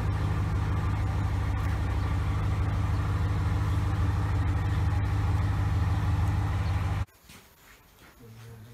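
Snap-on air compressor running with a steady low hum, cutting off suddenly about seven seconds in.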